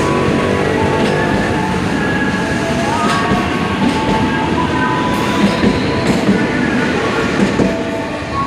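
A train running past on the tracks: a steady rumble of wheels on rail, with scattered clacks over the rail joints.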